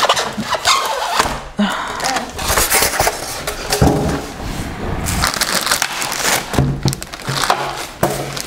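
Styrofoam packing end blocks being pulled off a plastic-wrapped sewing machine: foam rubbing against foam and plastic wrap in a run of irregular scrapes and crackles.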